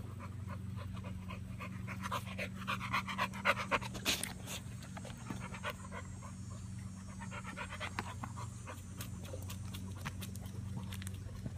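American bully dog panting hard, about five quick breaths a second, loudest a few seconds in and then softer: a dog cooling itself in summer heat.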